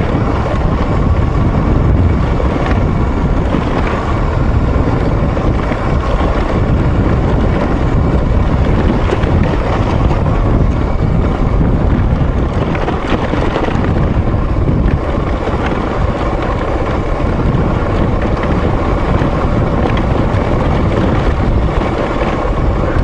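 Dirt bike engine running steadily under way on a rough dirt trail, mixed with wind buffeting the microphone.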